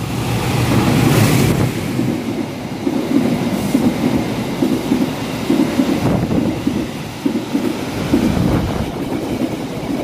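Diesel-hauled passenger train running through a station at speed. The locomotive passes first, loudest in the first second or so, then the coaches rush by with their wheels clattering over the rail joints in quick repeated beats.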